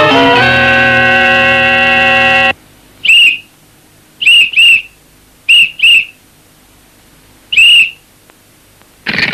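Music holding a chord cuts off abruptly about two and a half seconds in. It is followed by sharp blasts on a whistle: one, then two quick pairs, then a final slightly longer one.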